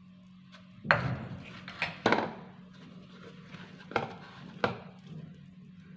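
Hands kneading soft, buttered dough in a bowl: irregular knocks and slaps of hand and dough against the bowl, the sharpest about one and two seconds in, over a faint steady hum.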